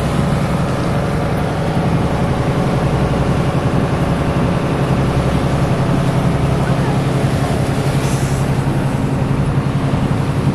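A passenger boat's engine running steadily, a low even hum, over the rush of water along the hull.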